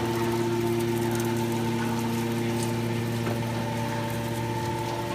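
Hydraulic power unit of a 200-ton automatic scrap metal baler running steadily: electric motors driving a hydraulic pump, giving an even, constant hum.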